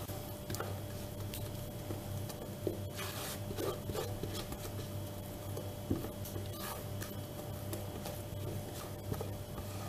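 Silicone spatula scraping sponge cake batter out of a mixing bowl into a springform pan: soft scrapes and light taps, over a steady low hum.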